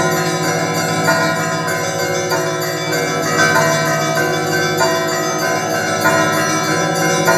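Russian Orthodox monastery church bells ringing a continuous festive peal, with many bells of different pitches sounding together and overlapping.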